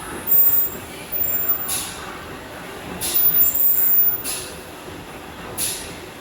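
Stepper-motor belt module of an inline laser-guide PCB repair station moving in short steps, giving brief high-pitched whines, with a few short hissing bursts in between.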